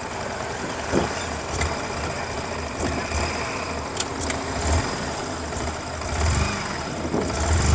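Yamaha MT-15's stock-exhaust single-cylinder 155 cc engine running under way, its low note rising and falling a little.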